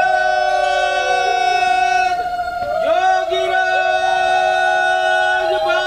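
Two conch shells blown together in long held notes, one higher than the other. The pitch bends down at the end of a breath about two seconds in, and after a short gap both sound again.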